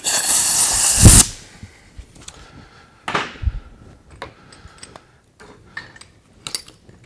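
A burst of compressed air hissing through a freshly oiled Chief pneumatic air hammer as its trigger is pressed, lasting about a second and ending in a thud. Then a few light metallic clicks and clinks as the tool is handled.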